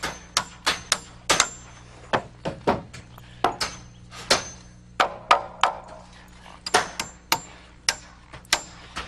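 Steel hammer driving 10 cm nails at an angle into wooden ceiling joists (toenailing): a quick series of sharp blows, about two or three a second in runs with short pauses between nails, some blows leaving a brief metallic ring.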